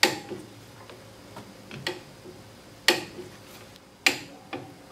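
Click-type torque wrench, set to 50 foot-pounds, tightening leaf-spring U-bolt nuts: three sharp metallic clicks, at the start, near three seconds in and just after four seconds, each the wrench breaking over at its set torque. Fainter ticks from the ratchet head come between them.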